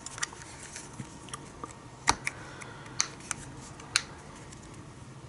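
A few sharp plastic clicks, roughly a second apart, as the plastic case of a USB power bank is pried apart by hand and its end caps come loose.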